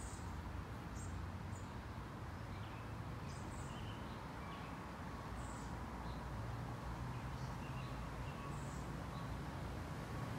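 Outdoor ambience with small birds chirping now and then, short high calls scattered through, over a steady low background noise.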